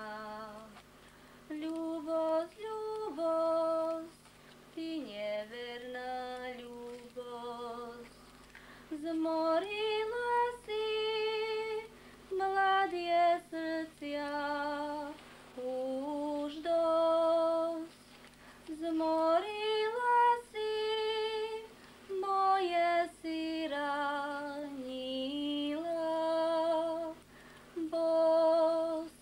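A woman singing a slow Slovak folk song without accompaniment. The phrases are made of long held notes with vibrato, with short pauses between them.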